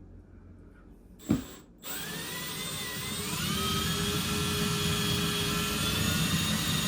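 A knock, then an electric drill motor running steadily on a cabinet mounting screw, its whine rising slightly as it gets up to speed.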